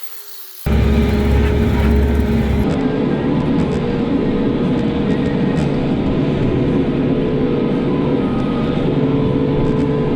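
Motor vehicle engine running steadily under way, starting abruptly about a second in.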